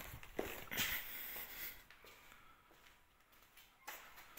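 Faint rustling and handling noise with two light clicks, one about half a second in and one near the end, from someone moving about with the camera.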